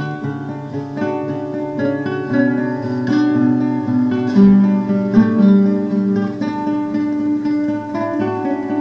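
Background music on acoustic guitar: plucked notes and chords changing steadily.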